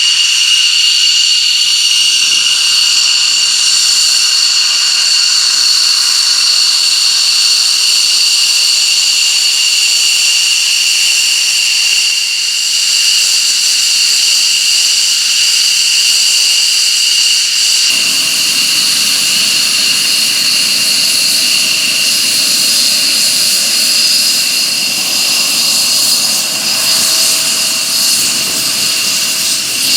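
An F-16 fighter's jet engine running steadily with a high, piercing whine over a roar. About two-thirds of the way through, a deeper rumble joins in.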